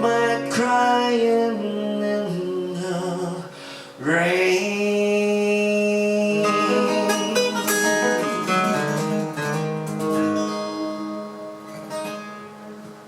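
Acoustic guitar playing the closing bars of a song, with long held notes over it, then dying away over the last few seconds as the piece ends.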